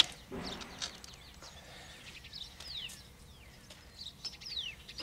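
A couple of sharp knocks and taps as the new window frame is handled in its opening, then a bird's faint, short, falling chirps a few times.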